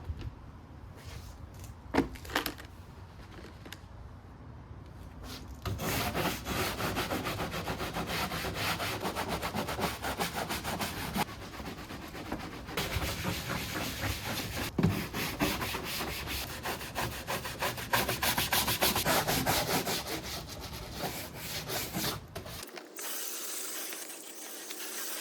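Stiff scrubbing brush scrubbed hard back and forth over unpainted plastic body cladding wet with degreaser, in quick strokes. The scrubbing starts about six seconds in, eases briefly midway, and stops near the end.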